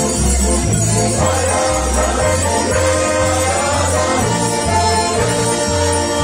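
Loud, lively folk dance music with a bass line stepping about twice a second and jingling percussion over it.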